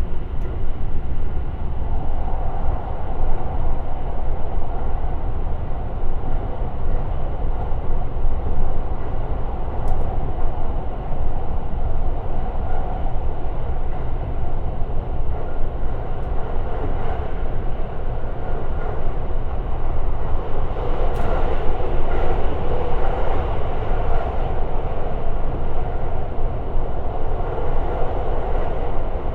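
Limited express electric train running on the line, heard from on board: a steady rumble of wheels on rail and running gear, with faint rail clicks.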